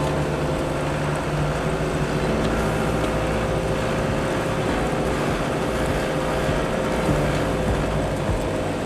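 Land Rover Perentie 110's Isuzu four-cylinder diesel engine running at a steady speed while the truck drives along a gravel dirt track, over a constant rumble of tyres on the road.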